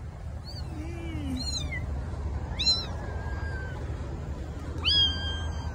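Kittens mewing: a series of short, high-pitched mews, the last one longer and held near the end.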